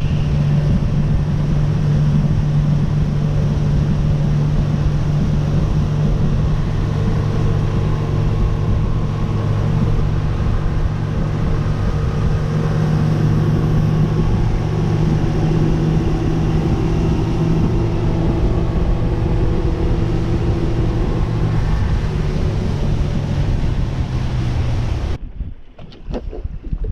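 Motorboat engine running steadily at speed under way, with wind buffeting the microphone and water rushing past the hull. The sound cuts off abruptly near the end.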